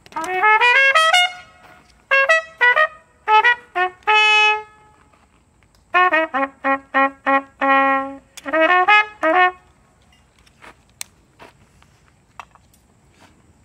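A solo brass instrument playing short phrases: quick rising runs, then single held notes, a string of rapid repeated notes and a last rising figure. It stops about nine and a half seconds in, leaving only a few faint clicks.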